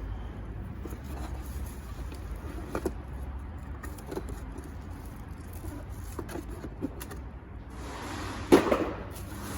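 A new water pump and its parts being handled: a few light knocks and clicks over a steady low hum, then a louder clunk with a brief rustle near the end.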